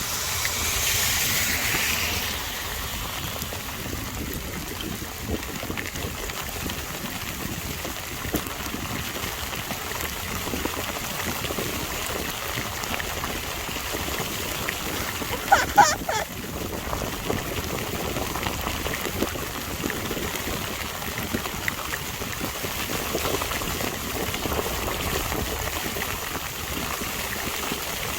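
Heavy rain pouring down in a steady hiss. About sixteen seconds in, a short high-pitched squeak sounds twice.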